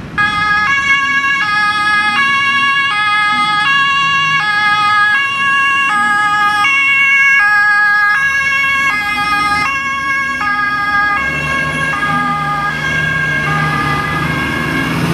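German two-tone emergency siren (Martinshorn) sounding its alternating high-low call, switching pitch about every three-quarters of a second. It weakens after about eleven seconds as a heavy truck's engine rumble rises under it.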